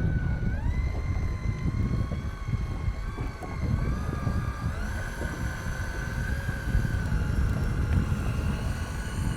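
Electric reel's motor whining as it winds a hooked fish up from deep water. Its pitch steps up about half a second in and again around the middle, then holds steady, over a low rumble of wind and water.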